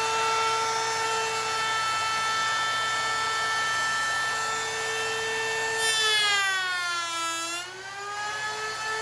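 Table-mounted router spinning at full speed with a steady high whine. About six seconds in it bogs down as the bit cuts into a scrap setup board pushed through on a coping sled: the pitch sags for a second or so, then climbs back to full speed. This is a half-depth test cut to set the bit height.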